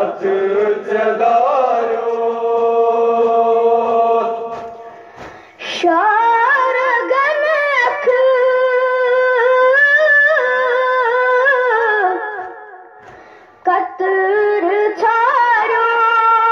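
A boy's voice singing a Kashmiri noha lament, unaccompanied, in long drawn-out phrases of held, wavering notes, with two short breaks between phrases.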